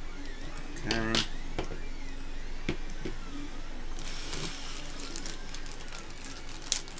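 A 3D printer's stepper motors whining in repeated rising and falling arcs as it prints, with small clicks and rustles of parts being handled. A brief voice sound about a second in is the loudest moment.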